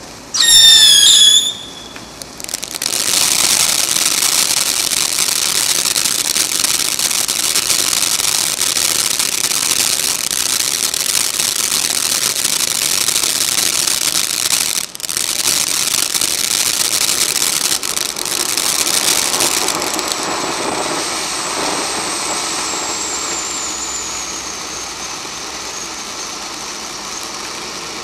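Black Cat Bellagio ground-fountain firework burning. A loud warbling whistle for about a second near the start, then a long loud hissing, crackling spray. Later it settles to a quieter hiss with a thin high whistle slowly falling in pitch.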